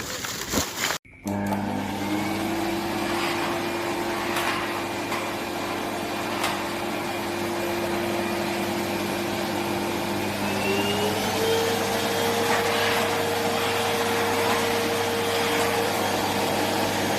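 Sharp EC8305 400-watt vacuum cleaner running steadily. Its whine rises as the motor spins up, about a second in, and climbs to a higher pitch about ten seconds in. A second of irregular handling noise comes just before the motor sound.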